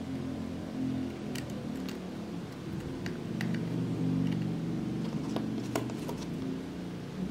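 Soft background music with low, sustained notes that change pitch every second or so, with a few light clicks of hard plastic parts being handled.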